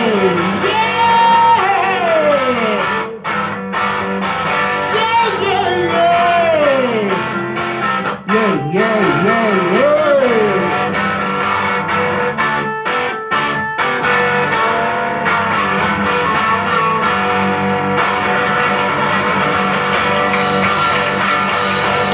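Live rock band with guitars playing the closing stretch of a song. For about the first half, a melody line slides down in pitch over a steady backing. After that the band holds sustained chords that ring on.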